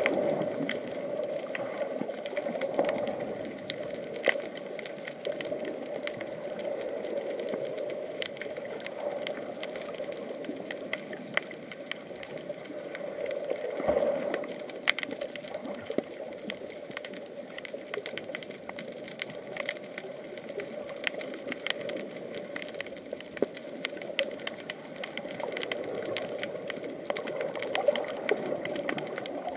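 Underwater sound picked up by an action camera in its waterproof housing: a steady hum with many scattered sharp clicks and crackles.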